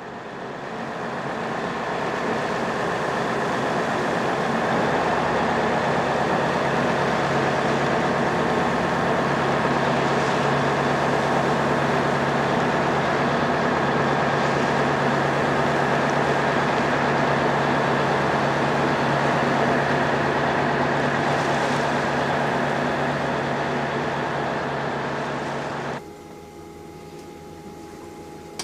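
Fishing boat's engine running steadily with a low hum. It fades in at the start and cuts off abruptly near the end.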